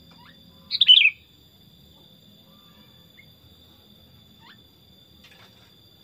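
Sooty-headed bulbul giving one short, loud burst of quick, falling chirpy notes about a second in, followed by a few faint single chirps.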